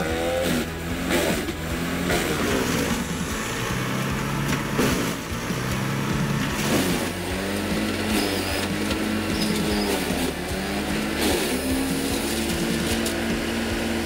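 Bandit wood chipper running under load as a log and branches are fed through, its engine pitch repeatedly dipping and recovering as the wood is chipped, with sharp cracks and snaps from the wood. Near the end the engine settles to a steady pitch.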